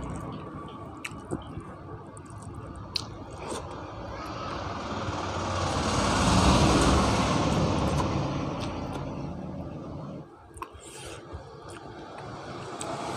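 Close-up eating sounds: chewing, and fingers scraping and picking food off a steel plate, with a few small clicks. A passing vehicle swells and fades in the middle, the loudest sound here.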